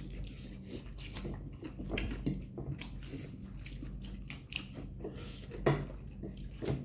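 Close-up chewing and mouth sounds of people eating spicy noodles: an irregular run of short wet smacks and clicks, over a low steady hum.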